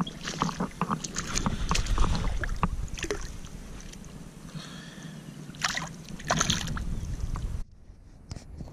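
Lake water splashing and sloshing as a hand lowers a largemouth bass back into the shallows, with scattered short knocks and clicks of handling. The sound drops away suddenly near the end.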